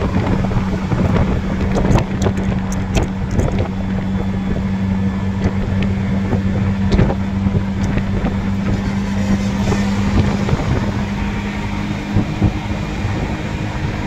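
Steady engine hum and rushing road and wind noise from a moving road vehicle, with wind on the microphone. A few sharp clicks come about two to three seconds in, and the hum shifts pitch near the end.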